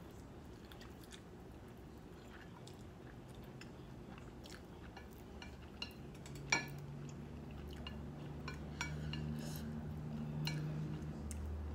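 A person chewing mouthfuls of noodles, with chopsticks clicking against the plate. There is one sharp click about six and a half seconds in, and a low steady hum through the second half.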